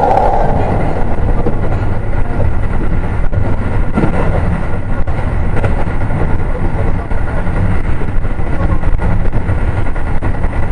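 Keio 7000 series commuter train running, heard from inside a car: a loud, steady rumble of wheels and running gear on the rails, with faint steady high tones over it.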